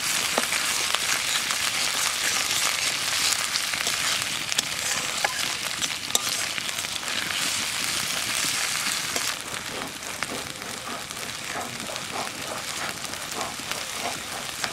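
Ginger and garlic pastes sizzling as they fry with browned onions in hot mustard oil in an aluminium karahi, stirred and turned with a spatula. The sizzle is strongest for the first two-thirds, then eases a little, with a few short scrapes of the spatula on the pan.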